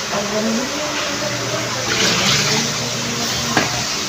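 Water sloshing and dripping as raw squid is rinsed by hand in a basin and lifted out into a plastic colander, with a short knock about three and a half seconds in.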